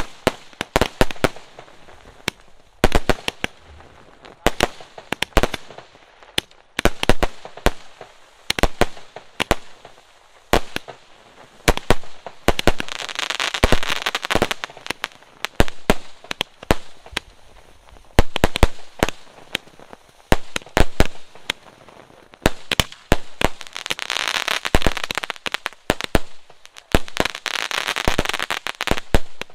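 Fireworks going off in quick succession: a steady string of sharp bangs and pops from aerial shots bursting overhead. A ground fountain (flower pot) sprays sparks with a hiss just before halfway through, and another long spell of hissing, crackling spray comes near the end.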